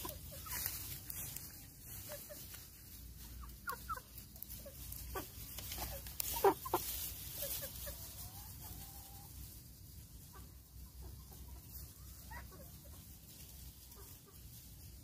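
Domestic chickens clucking in short, scattered calls, the loudest about six and a half seconds in.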